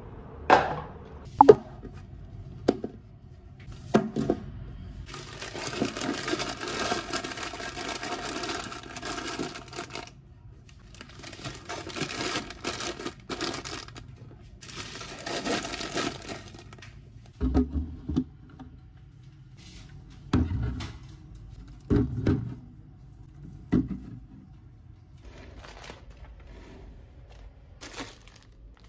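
Things being put away by hand: a few sharp knocks of items set down at first, then plastic and foil snack packets crinkling for long stretches, then several dull thuds as packages are set down on a shelf and in a plastic bin.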